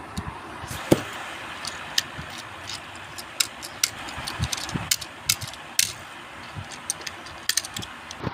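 Small die-cast toy cars handled on a hard table: irregular sharp clicks and taps as they are picked up and set down, over a steady background hiss.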